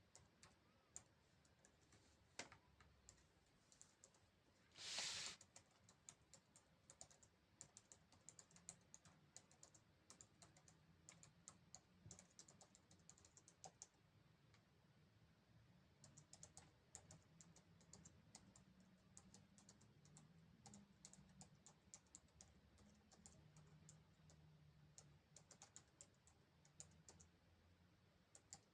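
Near silence, broken by many faint irregular clicks like typing on a keyboard and a short hiss about five seconds in.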